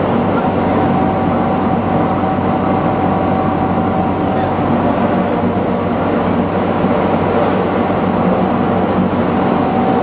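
Steady roar of an aluminum melting furnace's gas burner and combustion-air blower running, a constant loud rushing noise with a few steady hum tones under it.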